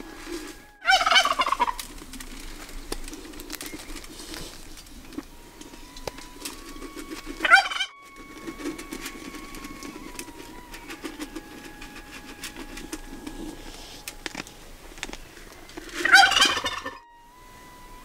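Turkey gobbling three times, each gobble a loud, rapid rattling call about a second long that falls in pitch.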